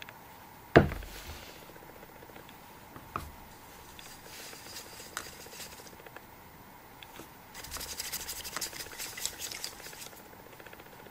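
A metal paint can is set down with a sharp knock on a rubber-matted bench about a second in, with a smaller knock a couple of seconds later. Near the end, a thin metal tool scrapes and clicks rapidly against the inside of a small plastic cap as paint is stirred in it.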